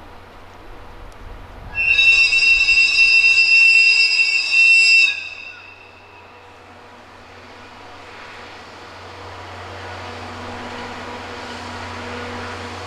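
A train horn sounds one long, loud blast starting about two seconds in and lasting about three seconds. After it, the passing train's running noise grows steadily louder as it approaches.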